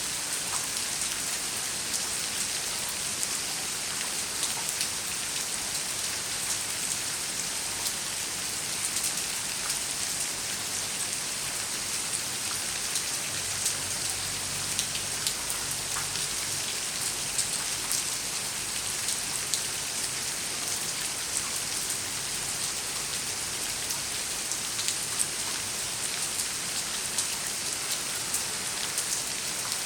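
Steady rain falling, a constant hiss with many scattered drop ticks. A faint low rumble sits under it for a few seconds in the middle.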